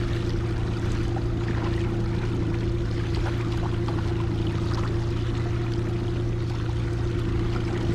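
Honda outboard motor running at a steady trolling speed, a constant even hum, with water noise from the boat moving through the water.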